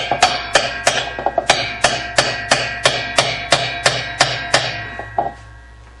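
Repeated hammer blows on a spanner nut wrench, tightening the spanner nut that holds the spin drum of a Whirlpool direct-drive washer. The strikes come about three a second, each with a ringing metallic tone, fade, and stop a little past five seconds.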